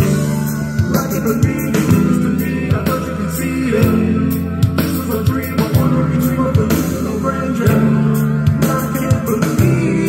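A song with singing, a steady drum beat and heavy bass, played loud through a Sony SS-D170 loudspeaker.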